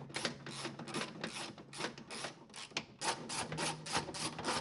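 Hand ratchet wrench clicking in a quick, even run, about four to five clicks a second and slightly faster in the second half, as the 10 mm bolts holding the door handle are driven back in.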